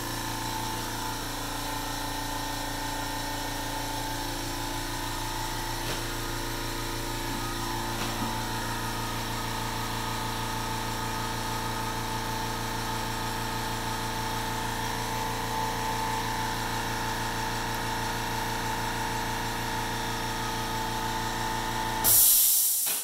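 Makita MAC210Q quiet-series 2-gallon air compressor running steadily as it fills its tank: a low, even hum with several steady tones, like an old refrigerator. It stops near the end with a short, loud burst of hiss.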